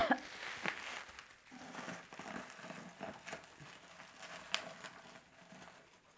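Bubble wrap crinkling and rustling as it is squeezed around a bunch of artificial leaf stems and pushed into a vase. A sharp crackle comes right at the start, then a few lighter clicks over a low, fading rustle.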